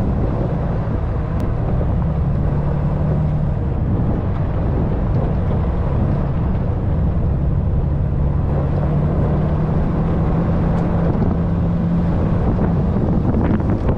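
Dodge Ram 3500 pickup driving along a dirt track, its engine running with a steady low drone.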